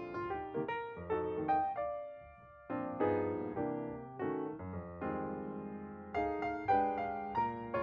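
Background piano music: single notes and chords struck one after another, each dying away, with a short lull about two seconds in.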